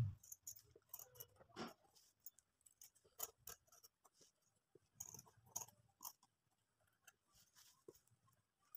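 Fabric scissors snipping through cloth, trimming the excess along a stitched scalloped edge: faint, irregular short cuts with pauses between them.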